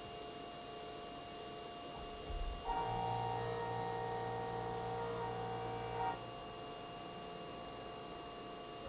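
TRAK Toolroom Machining Center running a program in CNC run mode, its spindle turning a 3-inch face mill with a steady high-pitched whine. From about three seconds in to about six seconds, a lower hum joins as the table feeds along X through the face-milling pass.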